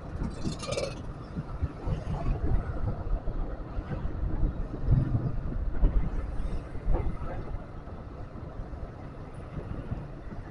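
Night street traffic heard from a moving ride: an uneven low rumble of wind on the microphone and motorbike engines, with a brief high hiss about half a second in.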